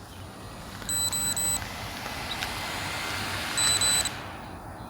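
Two bursts of rapid, high-pitched electronic beeps, about a second in and again near the end: the SJRC F11S drone's low-battery warning. They sit over a hiss from the landed drone's propellers that cuts off with the second burst.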